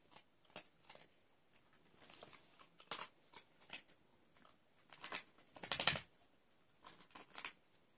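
Jack Russell terrier crunching dry kibble: irregular quiet crunches and clicks of chewing, with one longer, louder rustle about five to six seconds in.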